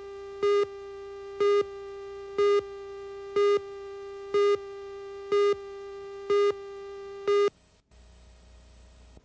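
Videotape countdown leader tone: a steady tone with a louder beep once a second, eight beeps in all, marking the countdown numbers. It cuts off about seven and a half seconds in, leaving only a faint hum.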